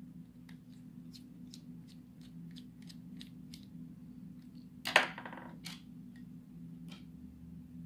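A car cigarette-lighter power plug being reassembled by hand: a run of small quick plastic clicks, then one sharp loud clatter about five seconds in, followed by a few more clicks.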